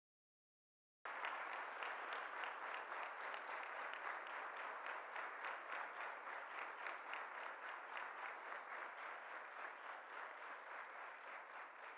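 Large audience applauding, the sound cutting in abruptly about a second in and slowly fading toward the end.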